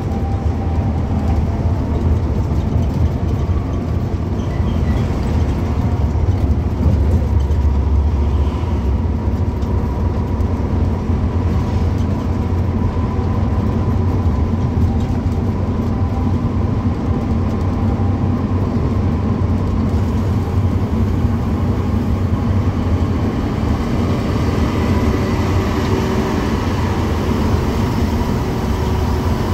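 Intercity bus at highway speed heard from inside the driver's cab: a steady low rumble of engine and road noise.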